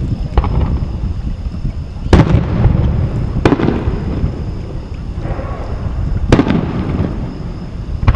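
Aerial fireworks going off: three sharp bangs, each with an echoing tail, about two, three and a half, and six seconds in, over a steady low rumble.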